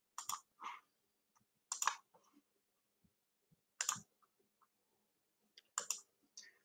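Computer mouse clicks picked up by a desk microphone: about half a dozen short, faint clicks, several in quick pairs, spaced out over a few seconds.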